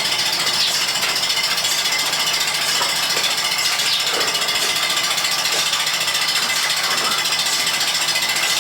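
Milking machine running steadily: the vacuum pump and pulsators make a continuous rapid mechanical rattle.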